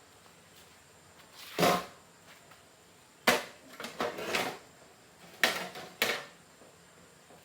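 Handling knocks and scrapes of tools and parts during a repair: one clatter about one and a half seconds in, a sharp knock followed by a second of scraping around the middle, and two more knocks near the end.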